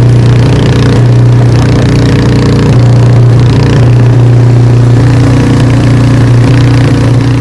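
Engine running at a steady speed, loud and close, with an even low hum that holds one pitch throughout.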